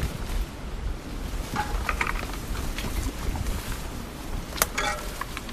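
Wind rumbling on the microphone, with scattered clicks and rustles and a few brief higher sounds about two seconds in and near the end.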